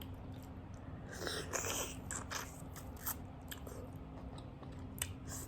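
A person biting and chewing food close to the microphone, with wet, crackly mouth sounds bunched about one to two seconds in and scattered small clicks after, including one sharper click near the end.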